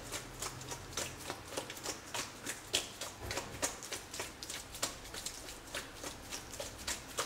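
Raw chicken wings coated in potato starch being shaken in a stainless steel colander set over a bowl, making a light, rhythmic patter of about four taps a second as the excess starch is shaken off.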